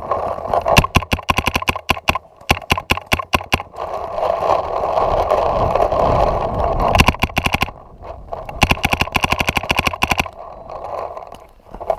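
Paintball markers firing in rapid strings of shots, about ten a second, with short pauses between strings. A steady rushing noise runs underneath between about four and seven seconds in.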